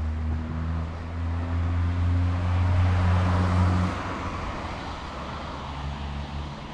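A car passing close by on the street: a low engine hum with a rushing tyre noise that swells and fades. The engine hum cuts off about four seconds in and returns more faintly near the end.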